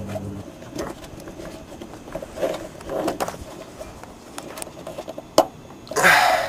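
Rubber exhaust hanger being twisted and pushed by hand onto its metal hanger rod: faint, irregular rubbing and scuffing, a sharp click about five seconds in, then a louder rasping scrape near the end. A low hum stops within the first half second.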